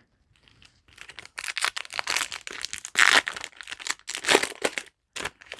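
Foil trading-card booster pack wrapper crinkling and tearing as it is opened: a run of rapid crackles starting about a second in, with louder bursts around the middle and near the end.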